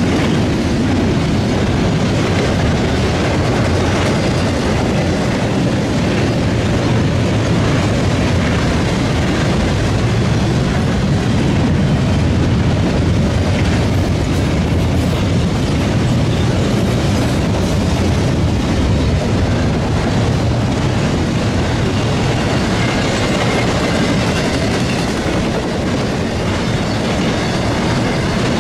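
Intermodal freight train's double-stack container well cars and trailer flatcars rolling past, a steady, loud rumble of steel wheels on the rails.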